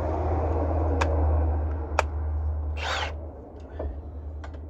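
Metal hand tools and sockets clinking, with sharp clicks about one and two seconds in and a short rasp about three seconds in, over a steady low hum that drops away after about three seconds.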